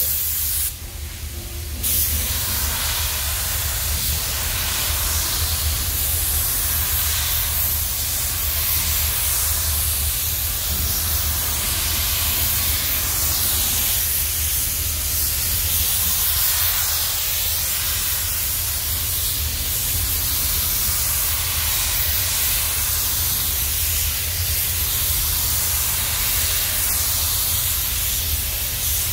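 Gravity-feed spray gun hissing steadily as compressed air atomises paint onto a camper van's body panel, with a steady low hum beneath. The hiss drops briefly about a second in, then carries on unbroken.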